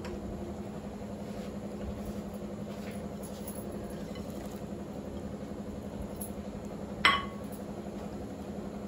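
A glass bowl clinks once, sharply and with a short ring, about seven seconds in, as chopped green chillies and ginger are tipped from it into a pot of curry. A steady low hum runs underneath, with a few faint taps.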